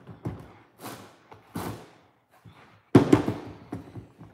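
Hands pressing and patting green play sand in a plastic sensory bin: a string of soft irregular scuffs and swishes, with one louder thump about three seconds in.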